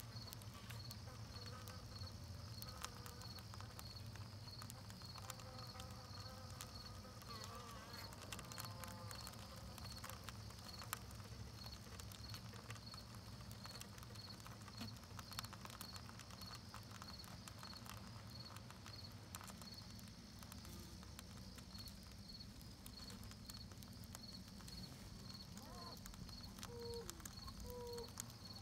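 Honey bees buzzing faintly at close range inside the hive, a steady low hum with many small ticks and crackles as they work propolis. A regular high-pitched pulse, about three a second, runs alongside.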